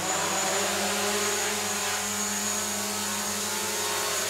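DJI quadcopter's motors and propellers lifting off the floor and hovering, a loud steady buzzing whine that comes in suddenly at takeoff throttle and holds even.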